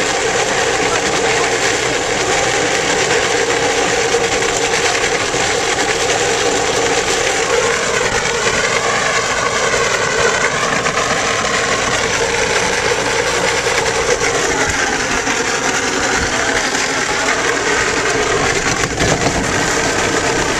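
Hard plastic wheels of a towed ride-on toy car rolling over asphalt: a steady, loud grinding rumble. Twice in the middle a wavering higher squeal rises over it for a few seconds.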